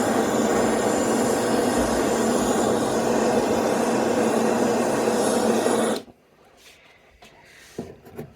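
Kitchen torch flame running as a steady, loud jet while firing art clay silver pieces; it cuts off suddenly about six seconds in, leaving only a few faint clicks.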